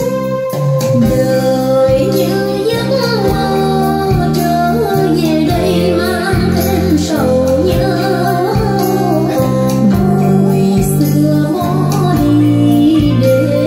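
A song with a female singer and instrumental backing, played through a pair of JBL TLX 16 three-way loudspeakers with 20 cm woofers.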